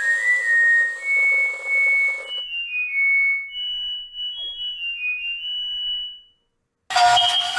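Toy washing machine run on 22–30 V, its electronic sound chip playing a beeping tune of stepping high tones over a whirring hiss from the running toy. The hiss cuts off suddenly a little over two seconds in and the tune goes on alone until about six seconds in. After a brief silence, a pig escalator toy's loud electronic song starts.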